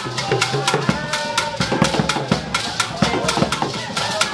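Asante traditional drumming: hand drums beaten with sticks in a brisk, driving rhythm, with sharp clicks about four times a second.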